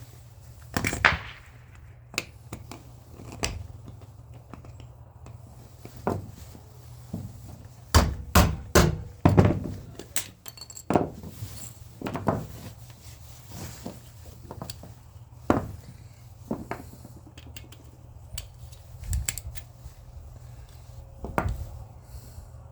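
Metal scrap parts and hand tools being handled on a work surface: irregular clunks, clicks and knocks, with a quick run of four or five loud knocks about eight seconds in, over a low steady hum.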